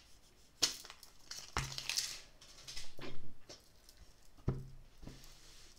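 Tarot cards and their hard cardboard box being handled. The card stacks and cardboard rustle, with a few soft knocks as they are set down, the clearest about a second and a half in and again near four and a half seconds.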